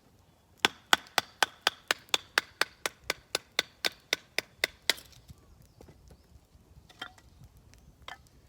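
A run of about eighteen quick, even chopping strikes on wood, roughly four a second, stopping about five seconds in; two fainter knocks follow near the end.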